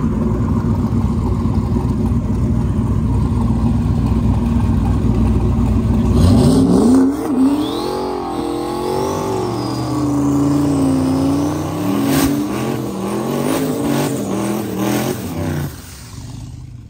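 Drag car engine running at a steady rumble, then revved hard about six seconds in for a burnout, its pitch climbing and then wavering up and down as it is held high, with a few sharp pops, before it drops away near the end.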